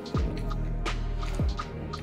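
Background music with a steady beat: a deep kick drum roughly every second and a half, sharp percussive hits and a short repeating high note.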